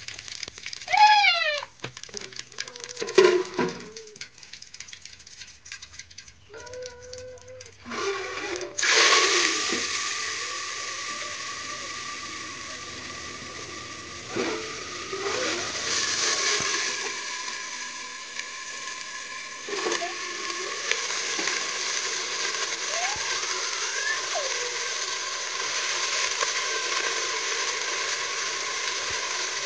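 Hot oil sizzling loudly in a pot over a wood fire, starting suddenly about nine seconds in and then holding steady. Before it come a few light clicks and a brief high voice.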